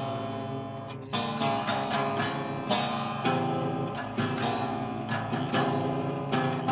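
Acoustic guitar being plucked by hand: single notes and chords picked one after another, each ringing and fading, with a new pluck roughly every half second.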